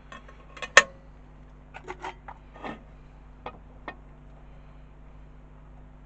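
Small hand tools and a wooden blank being handled on a workbench while marking out: one sharp knock just under a second in, then a handful of lighter clicks and taps, over a faint steady hum.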